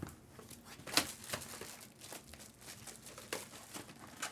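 Foil trading-card pack wrappers crinkling and being torn open, as soft scattered rustles with a few sharper crackles about a second in and again past the middle.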